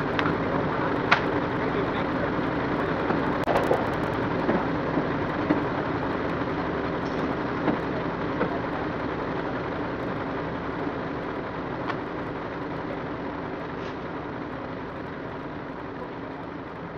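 A vehicle engine running steadily, with a few short clicks, slowly growing fainter.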